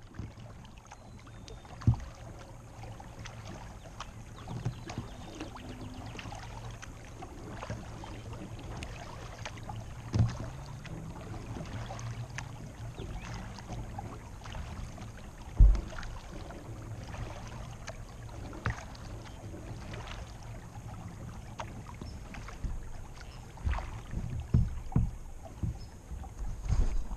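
Water lapping and trickling against a plastic kayak's hull as it moves along a calm creek, with many faint drips and ticks and a few dull knocks on the hull, the loudest just past the middle and several more near the end.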